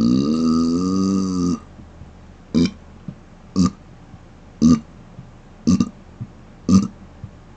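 Man's closed-mouth burps. One long, pitched burp dips and rises in pitch and stops about a second and a half in. Then come five short burps, about one a second.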